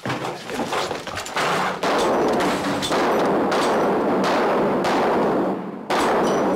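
Gunshots fired through a wooden apartment door, about ten shots spread over six seconds, each leaving a long echo that runs into the next.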